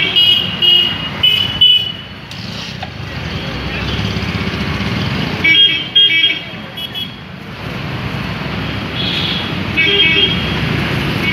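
Street traffic of motorbikes and scooters running past, with clusters of short, high horn toots near the start, around six seconds in and again about ten seconds in.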